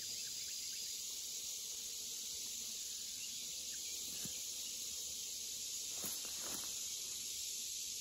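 Steady, high-pitched chorus of insects.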